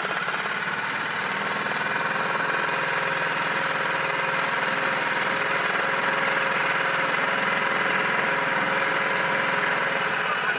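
Outboard motor of a small inflatable RIB running steadily under way.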